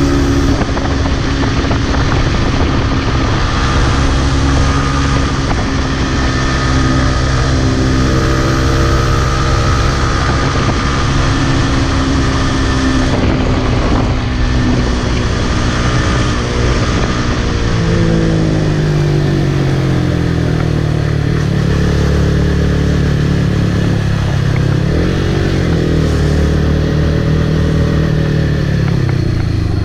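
Yamaha MT-15's single-cylinder engine running at speed through a series of bends, with wind rushing over the camera microphone. In the last third the engine note falls and rises several times, dipping sharply once.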